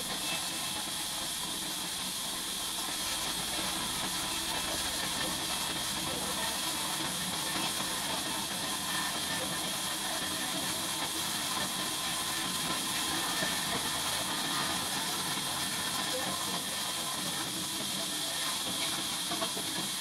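Large band sawmill running, giving a steady, even hiss that stays at one level throughout.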